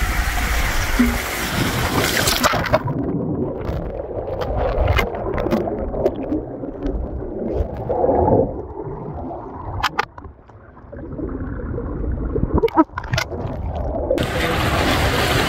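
Water rushing through an enclosed tube water slide as a rider slides down it. About three seconds in the sound turns muffled as the rider plunges into the pool and the sound is heard from underwater: gurgling and bubbling with scattered clicks. Near the end it opens up again into splashing pool water.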